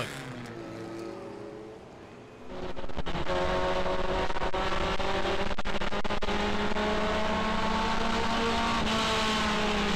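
A race truck's engine fades off over about the first two and a half seconds. Then comes the engine heard from inside a race truck's cab, running steadily with a droning pitch that drifts slightly, over rattling from the cab.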